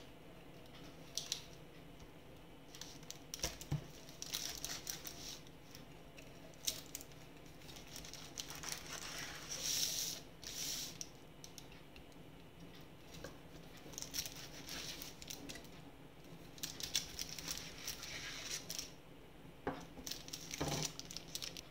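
Aluminium foil crinkling and a knife cutting down through a baked brownie on the foil, heard as a string of short scratchy rustles with a few light taps.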